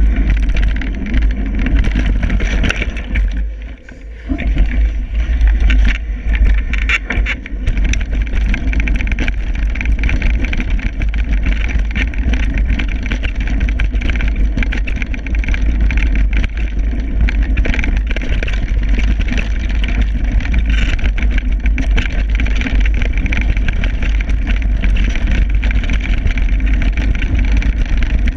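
Wind buffeting the microphone of a camera riding along on a mountain bike descending a dirt trail, a heavy steady rumble over constant small clicks and rattles from the bike and tyres on the rough ground. The rush eases briefly about four seconds in.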